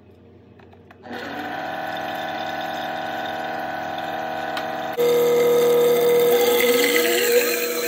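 Stainless-steel jug blender motor starts about a second in and runs with a steady whine, blending egg, mustard and lemon juice while olive oil is poured in to emulsify them into aioli. About five seconds in it becomes suddenly louder.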